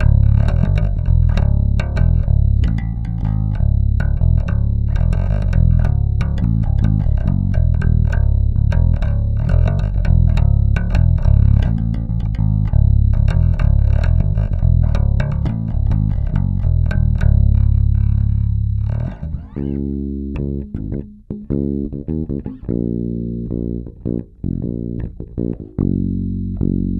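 Five-string electric bass guitars played solo through an amp. A fast, busy line on a wood-finish Warwick bass changes at about 19 seconds to sparser, separate plucked notes on a white five-string bass.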